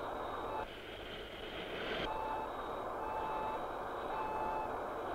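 Jet cockpit sound effect: short electronic beeps repeating about every two-thirds of a second over a steady engine hum. A little under a second in the beeps stop for about a second and a half while a hissing noise takes over, then they resume.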